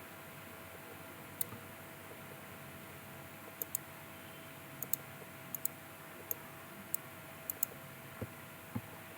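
Computer mouse clicking: about eleven sharp clicks, some single and some in quick pairs, over a steady hiss with a faint hum. There are two dull low knocks near the end.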